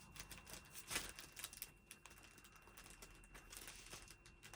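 Near silence with faint light clicks and rustles of stickers and paper being handled, the clearest about a second in.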